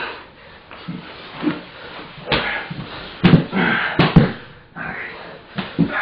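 Grappling bodies thudding and scuffling on a mat in jiu-jitsu, with sharp thumps about two, three and four seconds in.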